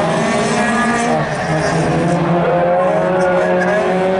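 Several race cars' engines running hard on a circuit, overlapping engine notes rising and falling as the cars accelerate and lift off.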